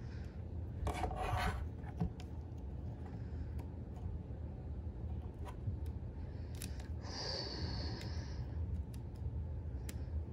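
Plastic parts of a Transformers Cutthroat toy figure rubbing, scraping and clicking as they are worked by hand to peg the bird head back on. There are scattered small clicks and two longer scrapes, one about a second in and one about seven seconds in, over a low steady hum.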